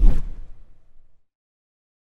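Edited transition sound effect: a sudden deep hit with a whoosh that dies away over about a second.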